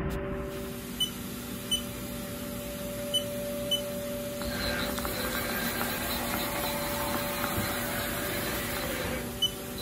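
A 2004 Haas Mini Mill CNC vertical machining center running: a steady hum with several whining tones. A few short high beeps sound now and then. From about four and a half seconds a rushing noise joins in and fades near the end.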